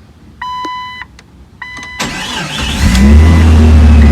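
A 2000 Jeep Cherokee's dashboard chime sounds a couple of times. Then the starter cranks briefly and the engine catches about three seconds in, its speed rising and settling into a steady fast idle.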